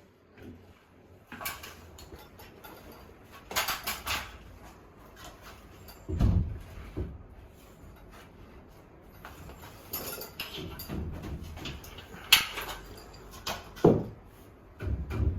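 Irregular knocks, clicks and rustles of hands handling tools and materials, with a few heavier thumps about six seconds in and near the end.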